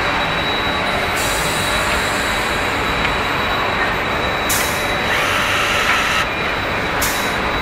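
Air-powered nut runner tightening the U-bolt nuts that clamp a truck leaf spring to its axle: a steady loud hiss with a faint high whine, and two short bursts of sharper air hiss, about four and a half seconds in and again near the end.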